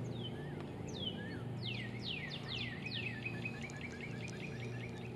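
A songbird singing: a few falling whistled notes that come faster and faster and run into an even trill, over a steady low hum.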